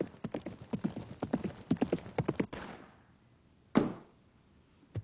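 Horse hooves clip-clopping in a rapid run of strikes that stops about three seconds in. Then comes a single loud, sharp bang just before four seconds.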